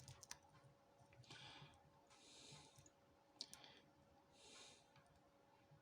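Faint, sparse clicks of a short hook pick working the pins inside a 50mm brass Avocet five-pin padlock, with a sharper click about three and a half seconds in.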